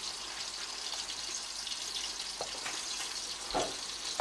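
Coconut sauce sizzling and bubbling in a frying pan with a steady hiss. A wooden spoon stirring it gives a couple of light knocks in the second half.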